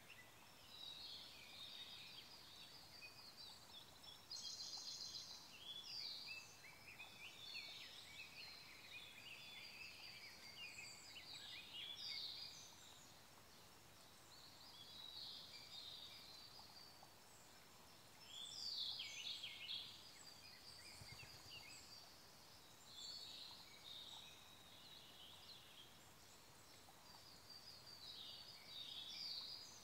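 Siberian blue robin and other forest songbirds singing faintly in overlapping high phrases and trills, a new phrase every few seconds, over the faint steady hiss of a flowing stream. A rapid trill comes about four seconds in, and the loudest phrase comes a little after the middle.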